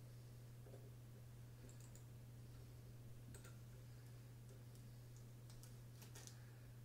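Near silence: a steady low hum, with a few faint clicks about two seconds in, around three seconds in, and near the end.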